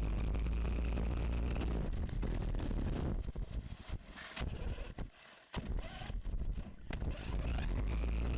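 Hobbyking Basher Nitro Circus 1/8 scale 4WD monster truck driving over rough grass and gravel, heard through its onboard FPV camera: steady rumble and wind buffeting on the microphone. The noise breaks up and briefly drops almost to quiet about five seconds in, then comes back steady near the end.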